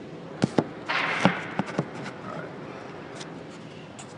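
Close handling noise: two sharp clicks, a short rustle about a second in, then two more clicks, over low steady room tone.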